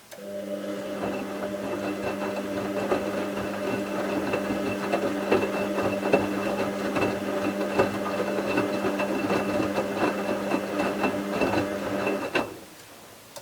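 Bauknecht WA 7778 W front-loading washing machine turning its drum for one wash stroke: the brushed motor hums steadily while the wet towels tumble with many small knocks. The turn lasts about twelve seconds, stops suddenly, and a single click follows. The drum bearing was already starting to fail, though not yet badly.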